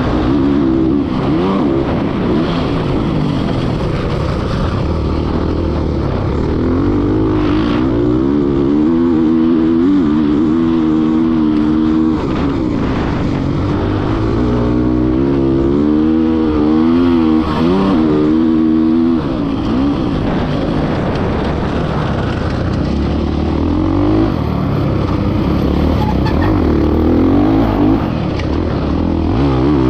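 2024 Kawasaki KX450X's 450 cc single-cylinder four-stroke engine running hard under race throttle. The revs climb and drop over and over as the rider works the throttle and gears.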